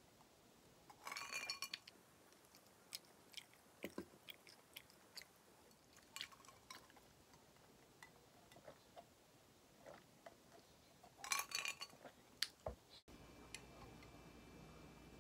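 Quiet eating at the table: small clicks of clam shells and a spoon against a ceramic bowl, with two short ringing clatters, one about a second in and one near the end, and soft chewing between them. About two seconds from the end it cuts to a faint steady room hum.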